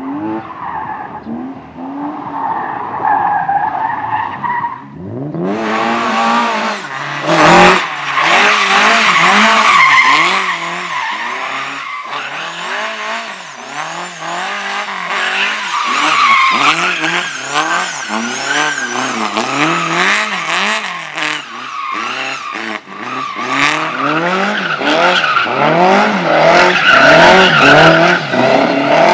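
Slalom race car engine revving hard, its pitch rising and falling over and over as the driver accelerates and brakes between gates, with tyres squealing and skidding through the turns. It gets much louder about five seconds in.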